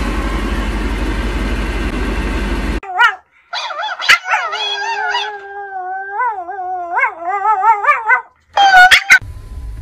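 Steady car-interior rumble for almost three seconds, then a small white Pomeranian howling: a long wavering howl that rises and falls in pitch for about five seconds, followed by two short, loud yips near the end.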